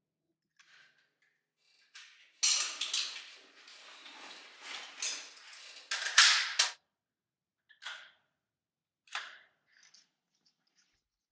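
A 9mm H&K SP5k roller-delayed blowback pistol firing a quick string of shots, starting suddenly a couple of seconds in and lasting about four seconds. Two more single sharp reports follow, about a second and a half apart.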